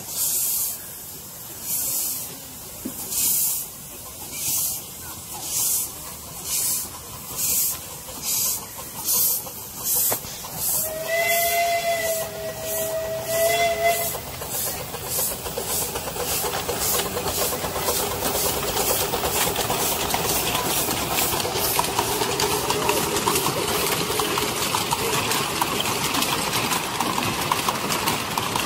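Miniature steam locomotive working a passenger train. Its exhaust chuffs quicken from about one a second to about two a second, and about eleven seconds in it gives a whistle blast of about three seconds. After that comes a steady rush of rapid chuffing and hiss as the train passes close by.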